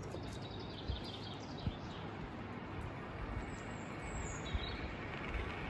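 Steady outdoor rushing noise, with a few faint bird chirps near the start and again about four seconds in, and two light knocks about one and one and a half seconds in.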